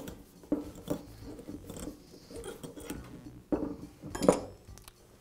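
Light clicks, taps and scrapes of steel tools being handled: a blind bearing puller being snugged into the bearing's inner race in a drill press quill, then a slide hammer picked up off the wooden workbench. The loudest knock comes about four seconds in.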